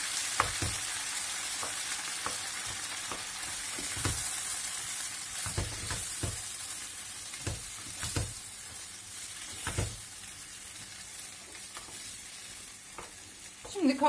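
Diced tomatoes and green peppers sizzling in oil in a pot, stirred with a wooden spoon that knocks against the pot every second or two. The sizzle slowly dies down.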